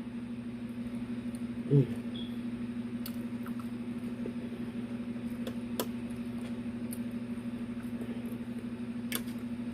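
A person eating quietly: a few small sharp mouth or utensil clicks and a short hummed "mm" about two seconds in, over a steady low hum.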